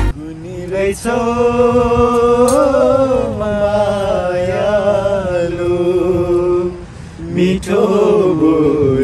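Singing with little or no accompaniment: a voice holds long, drawn-out notes that waver and bend in pitch, with a short break about seven seconds in.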